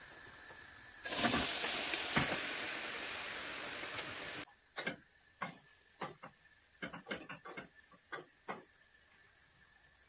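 A hot pan sizzling loudly for about three seconds, cut off abruptly. Then a wooden spoon knocks and scrapes lightly against the pan about a dozen times as raw chicken liver is stirred.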